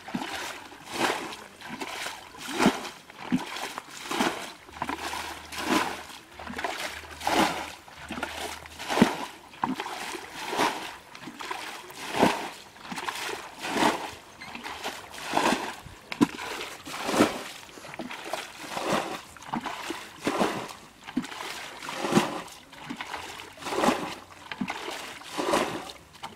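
Plastic bucket bailing a shallow muddy ditch: scooped through the water and flung out over and over, a steady run of splashes a little faster than one a second.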